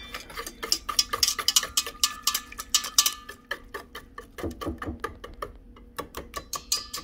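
Small wire whisk beating a thin mix of instant pudding and milk in a stainless steel bowl, its wires clicking rapidly and unevenly against the metal sides, with a short pause about five and a half seconds in.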